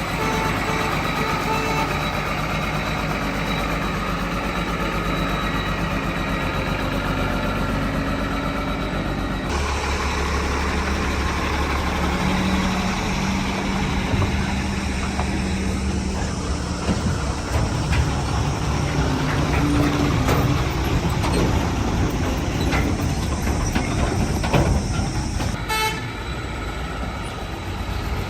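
Truck-engine sound effects from an RC dump truck's built-in sound unit: a steady engine drone with held tones that switches abruptly to a deeper note about nine seconds in.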